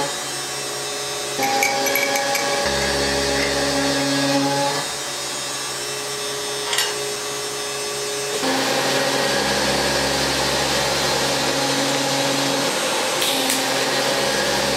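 Background music: sustained electronic chords over a deep bass note, changing every few seconds, with a brief click about seven seconds in.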